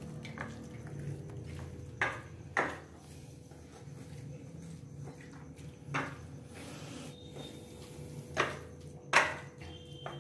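Hands mixing chicken pieces with marinade on a plate on a stone counter: about five sharp taps and knocks of crockery and small containers against the stone, the loudest near the end, over a steady faint hum.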